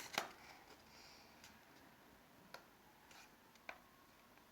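Near silence in a small room, with a few faint, scattered taps and clicks.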